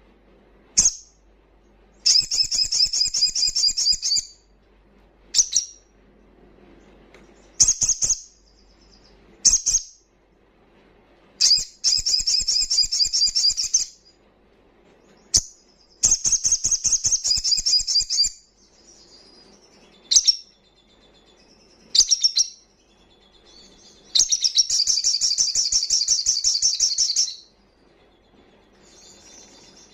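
Olive-backed sunbird (sogon) singing loudly. It gives fast, high-pitched trilled phrases about two to three seconds long, four times, separated by sharp single chip calls.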